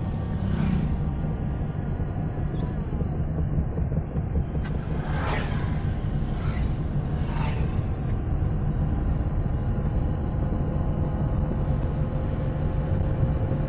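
Steady engine and road rumble inside a moving car's cabin, with a few brief whooshes of passing vehicles.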